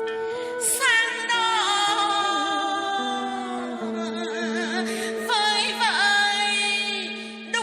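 Song with a singing voice: long, gliding notes with vibrato over a steady sustained accompaniment.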